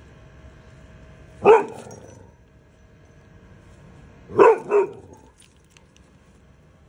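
Excited dog barking: one sharp bark, then a quick double bark about three seconds later.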